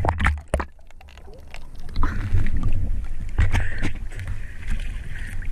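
Seawater sloshing and splashing around a diver at the surface, with uneven low rumbling buffets on the camera and scattered clicks. It drops quieter for about a second near the start, then picks up again.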